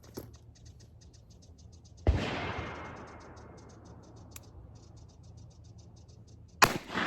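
Two shots from a Ruger LCP II .22 LR pistol firing CCI Stinger rounds, about four and a half seconds apart. Each is a sharp crack followed by a long echoing decay.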